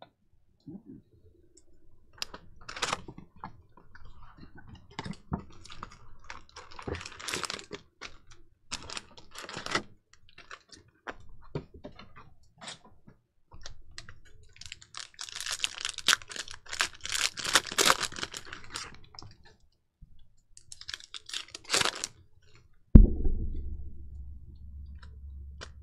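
Plastic cello pack wrappers crinkling and trading cards being flicked and shuffled by hand: scattered clicks and rustles, with a dense stretch of crinkling about halfway through. A loud thump comes near the end, followed by a low hum.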